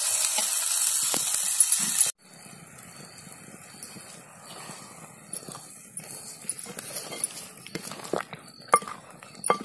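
Brinjal curry boiling in a clay pot, a loud steady hiss that stops abruptly about two seconds in. Then a quieter simmer, and near the end several sharp knocks and clinks as a wooden ladle stirs the pieces against the pot.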